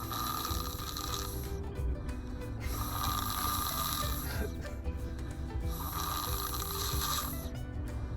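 A five-year-old child snoring in sleep: three snoring breaths, each about a second and a half long, coming about every three seconds.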